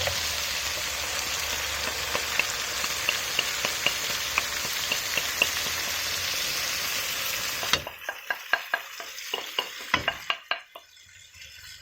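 Chicken pieces and vegetables sizzling in a frying pan with a little stock and soy-honey sauce, a steady hiss. About eight seconds in the sizzle drops away abruptly, and a run of sharp clicks and taps follows.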